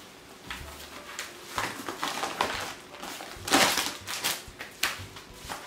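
Kraft-paper envelope and clear plastic packaging rustling and crinkling as an item is pulled out, in a string of short bursts, the loudest about three and a half seconds in.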